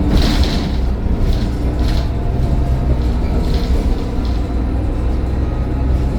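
Mercedes-Benz Citaro O530 bus running steadily, with a deep, even engine drone and a faint, thin, high turbo whine over it.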